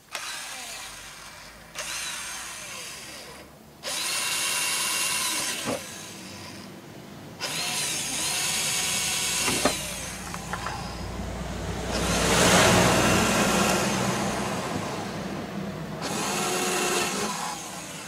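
Electric drill boring fixing holes in a camper's fridge vent panel, run in several bursts of a few seconds each, with the loudest stretch about two-thirds of the way through.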